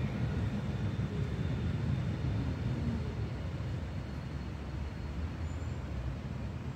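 Tram rolling away along the track, a low rumble that slowly fades, mixed with street traffic.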